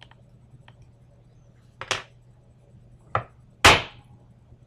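Three sharp knocks as a pin-tumbler euro lock cylinder is tapped to free a pin stuck below the shear line, the last knock the loudest, after a couple of faint clicks.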